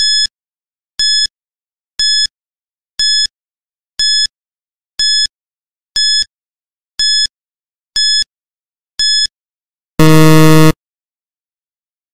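Quiz countdown-timer sound effect: ten short high beeps, one a second, then a louder, lower buzzer lasting under a second about ten seconds in, sounding time up.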